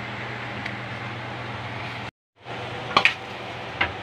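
Steady low hum and hiss of room noise that cuts out completely for a moment about two seconds in. About three seconds in, two sharp clinks of a spoon against a stainless steel mixing bowl, and one more near the end.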